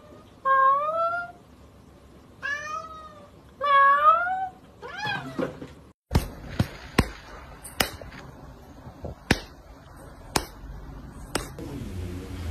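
A domestic cat meowing four times, each call rising then falling in pitch, followed after about six seconds by a run of sharp knocks and clicks.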